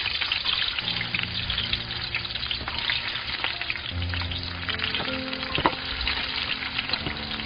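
Garlic cloves frying in hot olive oil in a stainless steel pot: a steady sizzle full of small pops, with one sharper click a little past the middle.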